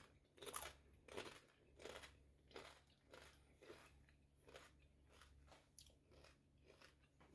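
A person chewing a crunchy corn chip with salsa, a steady run of crisp crunches about one and a half a second that grow fainter as the chip is chewed down.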